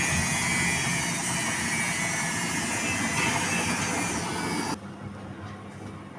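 Washing machine taking in water for the last rinse: a steady rush of water that cuts off abruptly near the end as the inlet stops, leaving a low hum from the machine.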